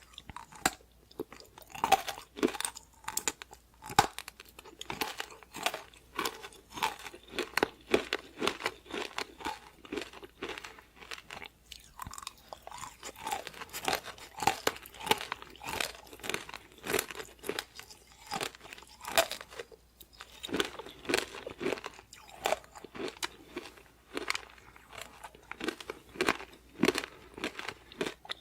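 A person biting and chewing crispy fried chicken, with frequent irregular crunches.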